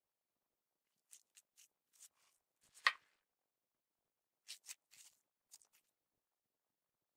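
Purple glitter slime being squeezed and folded in the hands, giving short wet clicks and small popping crackles in two clusters, the loudest about three seconds in.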